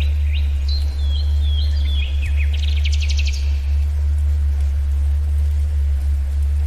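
Songbird singing a run of short chirping phrases that ends in a fast trill about three seconds in, over a steady deep low tone, the theta-wave tone of the track, which is the loudest sound throughout.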